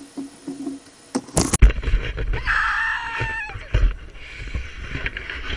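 Muffled knocking and low rumbling from a camera in a waterproof case being handled, starting with a sharp knock about a second and a half in. A brief high cry falls in pitch about three seconds in.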